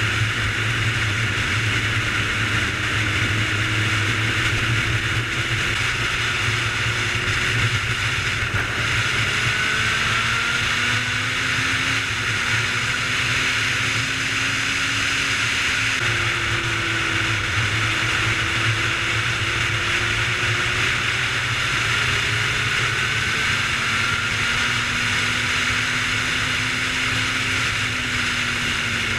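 Sport motorcycle engine running at steady cruising speed, its pitch drifting slowly up and down, under a steady rush of riding wind on the camera's microphone.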